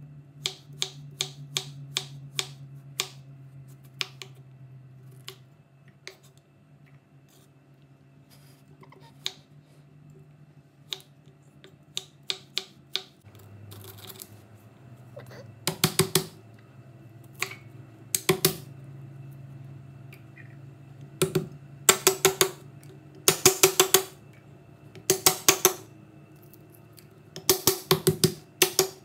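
A kitchen knife striking a wooden cutting board, first as a run of single sharp chops through lemongrass stalks. From about halfway in come loud bursts of rapid heavy knocks as the lemongrass is pounded to bruise it. A steady low hum sits underneath.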